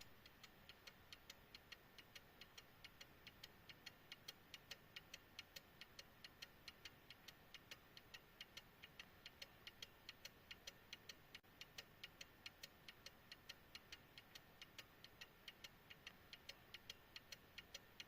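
18th-century verge fusee pocket watch ticking steadily and quickly, about five ticks a second, with the close, crisp beat of its verge escapement.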